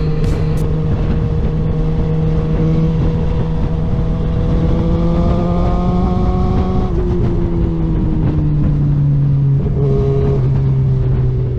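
Sport motorcycle engine running at steady cruising revs under heavy wind and road noise. Its pitch climbs slowly for a few seconds, then falls away in the second half.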